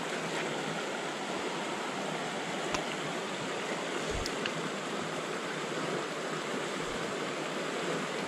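Stream water rushing over rocks, a steady hiss, with a couple of faint small knocks about three and four seconds in.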